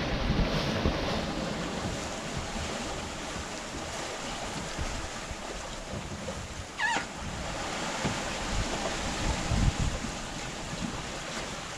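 Wind buffeting the microphone over the wash of the sea alongside a sailing yacht, with a short, high, wavering squeal about two-thirds of the way through.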